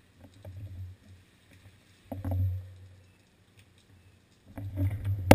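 Muffled knocks and rumble from a bicycle being handled and set in motion. About four and a half seconds in, the bike starts to roll on wet concrete and a louder, uneven rumble of tyres, frame rattle and wind sets in.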